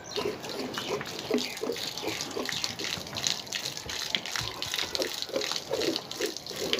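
A cow being milked by hand: alternating streams of milk squirt from the teats into a steel pail already full of froth, in a steady rhythm of about two to three squirts a second.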